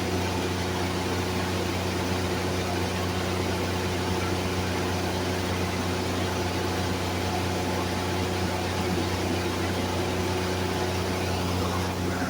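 Stick (shielded metal arc) welding arc crackling and sizzling steadily, with a steady hum from the welding machine underneath.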